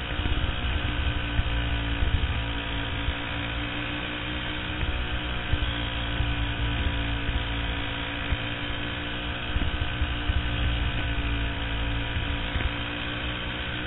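A champ kart's engine running hard at a nearly steady pitch, heard from a camera mounted on the kart, with a low rumble of wind and vibration on the microphone.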